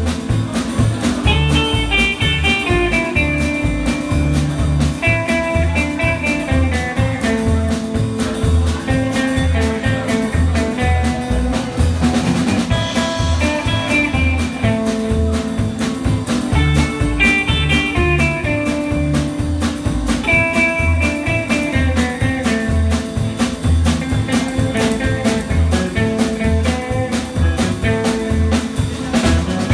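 Live rockabilly band playing an instrumental passage: electric guitar lead lines over upright double bass and drum kit, with a steady driving beat.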